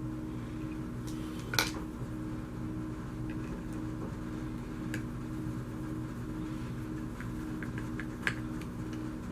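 Small hard parts and hand tools clicking and tapping on a work table during hands-on assembly: a few sharp knocks, the loudest about one and a half seconds in, over a steady low hum.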